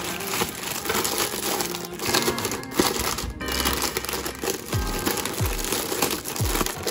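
Small plastic snack bags crinkling as they are handled and packed into a plastic bin, over background music with a few deep, falling bass hits in the second half.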